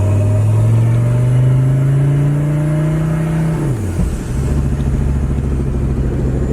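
Mercedes OM617.952 five-cylinder turbodiesel pulling under load, its note rising slowly with a faint high turbo whistle. About four seconds in, the engine speed drops sharply, then holds steady and lower.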